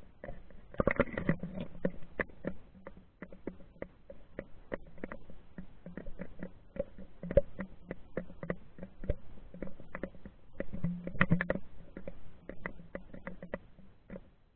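Irregular small clicks and knocks, muffled, as an action camera in its waterproof housing is moved underwater along a lake bottom. Denser bursts of knocking come about a second in and again near eleven seconds.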